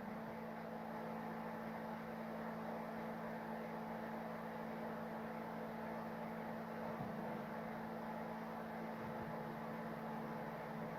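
3D printer running a print: a steady mechanical hum of fans and motor tones, with the tones briefly shifting in pitch about seven and nine seconds in.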